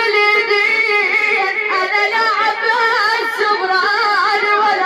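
A woman chanting a nai, a mourning lament, in one nearly unbroken line of singing whose pitch waves and bends up and down in ornamented turns.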